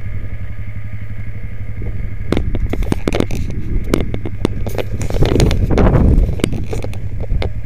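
ATV engine running steadily, with scattered knocks and clatter, and a louder rush of noise about five seconds in that lasts about a second.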